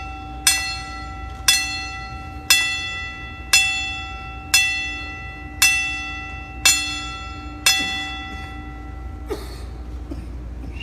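Boxing ring bell struck about once a second, each stroke ringing out and fading before the next, as in a ten-bell salute for the dead; the strikes stop about eight seconds in.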